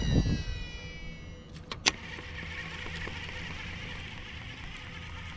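A fishing reel during a cast and fast retrieve: the spinning spool gives a whine that falls in pitch over about a second and a half, then two sharp clicks, then a steady whirring as the swimbait is reeled back fast along the surface.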